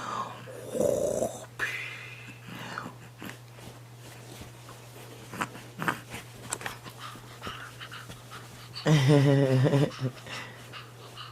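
Infant fussing: short whimpers and grunty breaths, with one louder, longer cry about nine seconds in.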